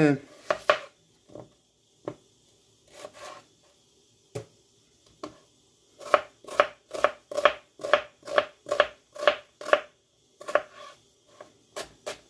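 Chef's knife chopping an onion on a plastic cutting board: a few scattered cuts and knocks at first, then from about six seconds in a regular run of knife strokes about two a second. The strokes pause briefly near ten seconds and then start again.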